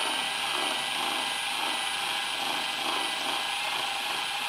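Milwaukee Fuel cordless drill running steadily as it bores out and enlarges a wire hole in a lawn mower's plastic engine shroud.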